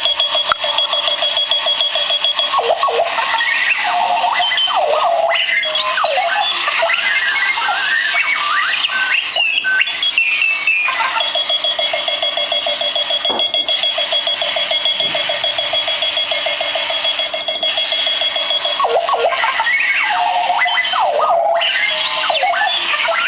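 Clocky runaway alarm clock sounding its electronic alarm. A fast, steady beeping tone gives way to a run of random warbling, chirping bleeps, returns as a steady beep, then switches back to chirps near the end.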